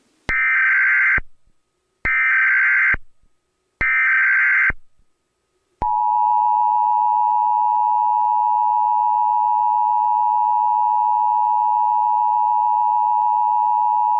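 Emergency Alert System broadcast header: three short bursts of SAME digital data tones about a second long each, then the steady two-tone attention signal (853 and 960 Hz sounding together), held for about eight seconds until it cuts off at the end.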